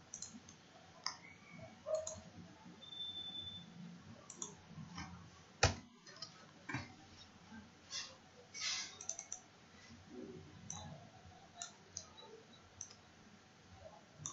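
Faint, scattered clicks of a computer mouse and keyboard, with one sharper click about halfway through.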